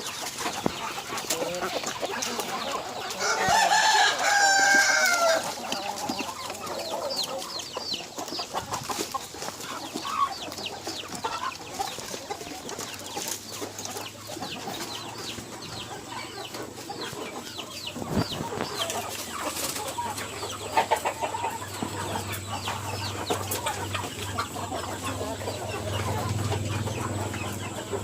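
Kampung chickens (Indonesian native village chickens) clucking, with a rooster crowing once about three to five seconds in, the loudest sound. Scattered short calls and light ticks follow, over a low steady hum in the later part.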